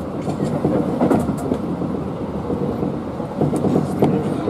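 Tobu 8000-series electric train running, heard on board: a steady rumble and rattle, with a few clacks from the wheels over the rail joints.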